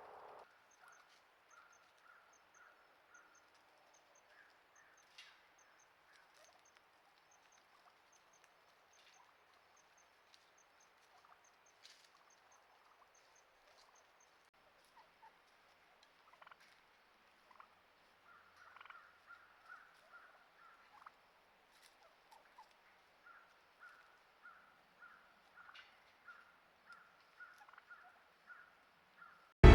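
Faint bird calls in woodland: a few high, thin notes in the first half, then a run of short repeated calls at one pitch, about two a second, through the second half.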